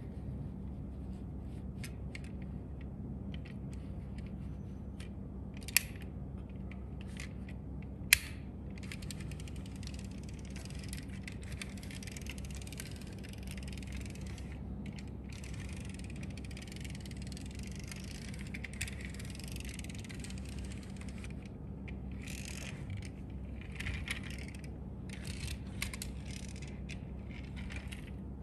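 Die-cast toy car's pull-back motor whirring and ratcheting in long runs as the car is wound back over carpet and let go, then in shorter bursts near the end. There are two sharp clicks shortly before the whirring begins.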